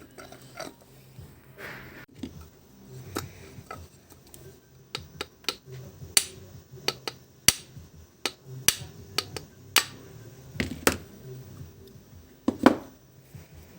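Irregular sharp clicks, taps and clinks of metal tools and small motor parts being handled, with two louder knocks past the middle and near the end. This is the vacuum cleaner motor being worked on to replace its broken bearing.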